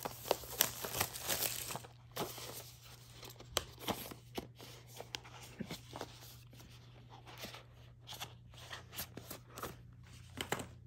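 Packaging being torn and crinkled open by hand, loudest in the first two seconds, then scattered small clicks, taps and rustles as the contents are handled, over a faint steady low hum.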